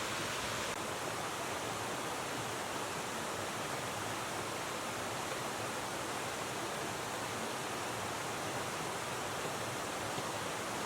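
River water rushing steadily, an even hiss with no breaks.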